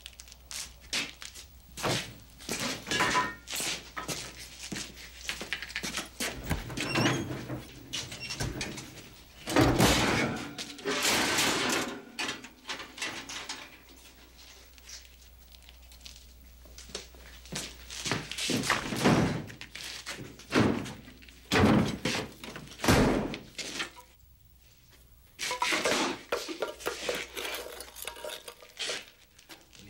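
Irregular thuds and knocks with some clatter, as things are banged and moved about inside a wooden shack, with quieter spells about halfway through and again near the end.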